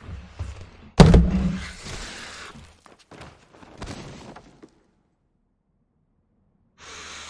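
A sudden heavy thump about a second in that fades away over a second or so, followed by fainter rustling.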